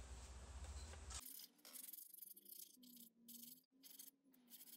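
Near silence with faint, intermittent scratching: sandpaper rubbed in short strokes over a cured cement bonsai pot.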